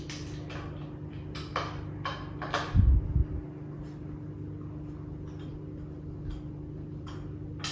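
Allen key working bolts into a wooden easel frame: scattered light clicks and scrapes, with a dull thump about three seconds in, over a steady low hum.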